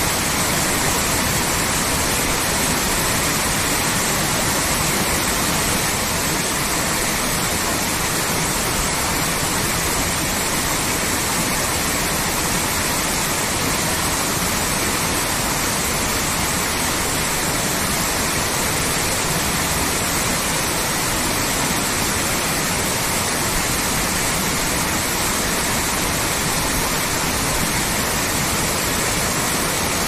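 Waterfall cascading down a rock face into a shallow pool: a steady, even rush of falling water.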